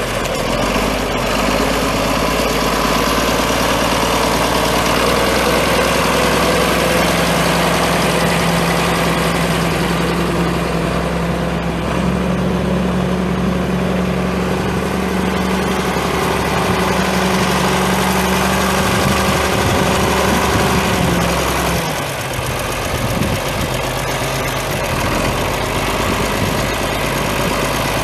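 John Deere 4630 tractor's 6.6 L six-cylinder diesel engine running steadily, with a brief dip and change in its sound about three-quarters of the way through.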